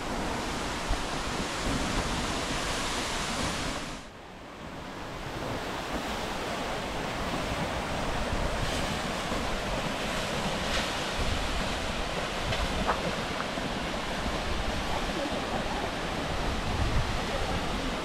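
Steady rush of Latourell Falls' falling water, with wind on the microphone. The sound drops away briefly about four seconds in, then comes back.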